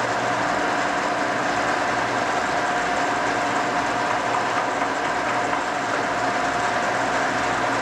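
Cincinnati No. 5 vertical milling machine running under power: a steady machine hum with a few held whining tones, no change in speed.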